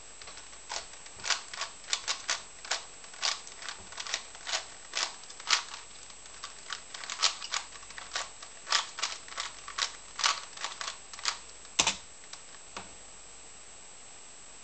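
A 3x3 speedcube being turned by hand, its layers clicking and clacking several times a second in quick irregular runs. There is a louder clack near twelve seconds in, and the turning stops just after.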